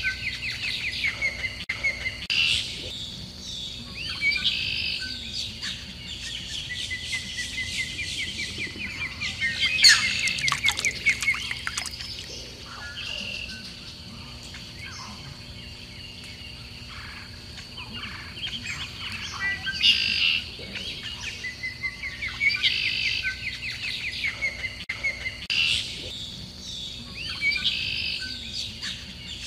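Small songbirds chirping and trilling in quick repeated phrases, with the loudest flurry about a third of the way in, over a faint steady high-pitched tone.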